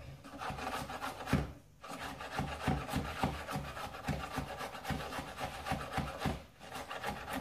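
Chef's knife chopping cucumber on a wooden chopping board: a quick, even run of knocks as the blade hits the board, broken by two short pauses, one about a second and a half in and one near the end.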